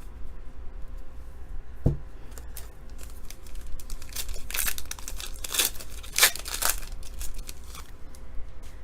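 A trading card pack's wrapper being torn open and crinkled, with bursts of tearing and rustling from about four to seven seconds in. A single short tap about two seconds in.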